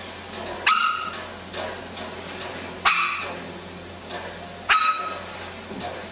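Small dog barking: three short, sharp, high barks about two seconds apart.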